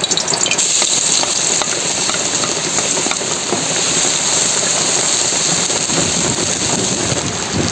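Minced garlic sizzling steadily in hot oil in a wok, stirred with a wooden spoon, with small crackles through the hiss.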